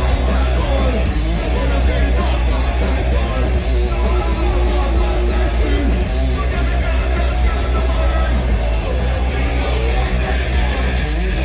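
Live punk band playing loud through a festival PA: electric guitars, bass and drums with the singer's vocals over them.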